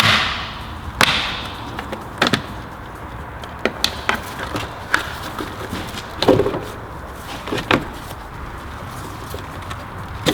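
Irregular sharp clicks and knocks of a spanner working on a car battery terminal as the battery is disconnected, after a brief rush of noise at the start.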